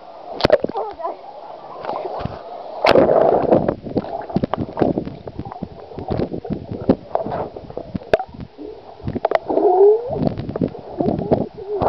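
Swimming-pool water splashing and sloshing against a camera held at the surface as it dips in and out of the water, with irregular sharp splashes and gurgling.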